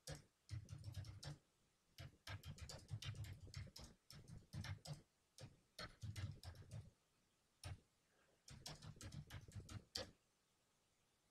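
Computer keyboard typing, faint, in quick runs of keystrokes with short pauses between them, about six runs in all.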